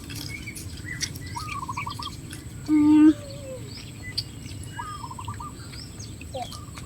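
Bird calls in the open: a call that rises and then breaks into a short trill is repeated three times, over fainter high chirps. About three seconds in comes a brief, louder, low steady call.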